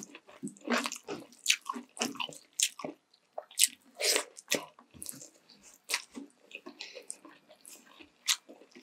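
Eating sounds: biting and chewing sweet and sour chicken legs, a quick irregular run of short mouth clicks and bites.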